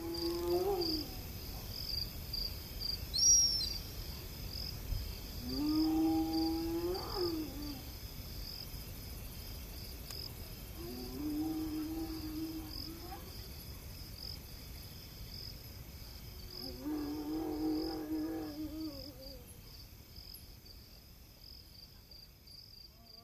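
Wild savanna ambience: a steady chorus of insects with four long, drawn-out animal calls, one every five or six seconds, and a single short bird chirp about three seconds in, the loudest moment. It all fades out near the end.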